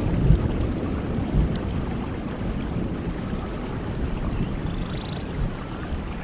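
Steady rain falling, with a low rumble of distant thunder that fades away over the first few seconds.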